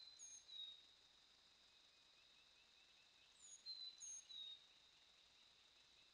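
A bird singing a short, high phrase of quick sweeping notes, once at the start and again about three and a half seconds in, over a faint steady high-pitched tone.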